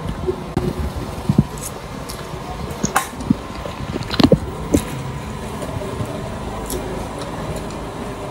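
Someone eating a spoonful of rice and cabbage stew: soft chewing with a few short, sharp clinks of cutlery, over a steady background hum.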